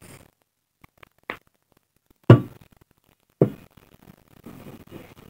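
Two dull knocks about a second apart, as objects are handled and set down by hand. A few small clicks come before them, and soft rustling handling noise follows.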